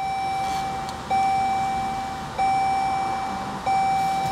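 Chrysler Pacifica Hybrid's dashboard warning chime sounding as the van is switched on. It is one steady tone repeated four times, about every second and a quarter, each note fading a little before the next.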